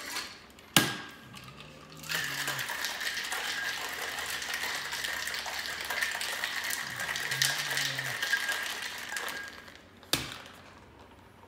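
Ice rattling hard in a metal cocktail mixing tin as a drink is shaken for about seven seconds, with a sharp knock about a second in and another near the end.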